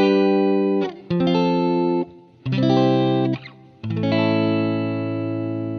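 Intro music: four held chords, the first three about a second each with short breaks between, the fourth held long and slowly fading.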